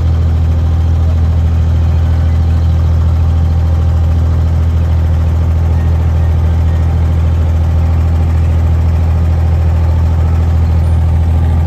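Inboard diesel engine of an abra, a wooden creek water taxi, running at a steady pace under way: a loud, even low hum that does not change.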